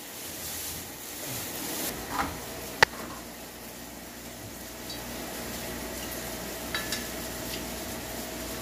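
Quiet kitchen sounds as a lemon is squeezed by hand over a plate of cooked fava beans: a faint steady hiss, with one sharp click about three seconds in.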